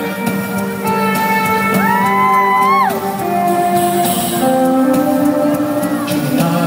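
Live rock band playing a slow song, with electric guitar and held notes, heard from the audience. About two seconds in, a high note slides up, holds with a slight waver, and drops away.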